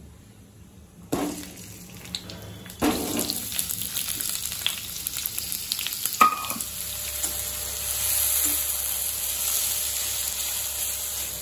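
Cut onions dropped into hot oil in a kadai in two lots, about one and three seconds in, each setting off a sudden sizzle. The frying sizzle then carries on steadily, with a spatula stirring and clicking against the pan and one sharp knock about six seconds in.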